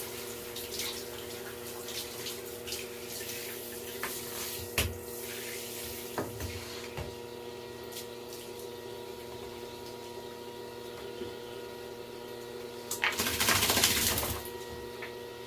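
Running water from a tap or shower spray rinsing a small dog's fur in the bath, a steady hiss with a steady hum underneath and a few light knocks. About 13 seconds in, a louder rush of splashing water lasts a second or so.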